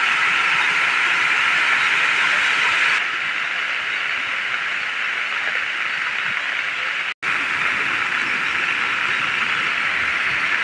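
Heavy monsoon rain falling steadily, a dense, even hiss. The level steps down slightly about three seconds in and cuts out for an instant about seven seconds in.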